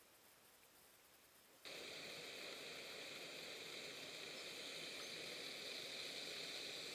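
Faint background, then a steady rushing hiss cuts in suddenly a little under two seconds in.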